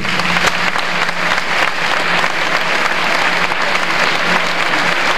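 A large audience applauding in a gymnasium: dense clapping that starts suddenly and keeps going, with a faint steady low hum underneath.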